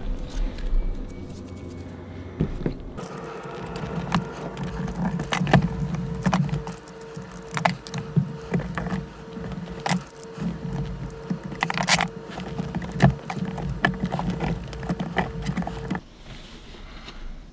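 Hard white mould material being cracked and picked off an epoxy resin casting by hand and with pliers, with the plastic film around it crinkling. The sound is a busy run of sharp clicks and crackles that starts about three seconds in and stops shortly before the end.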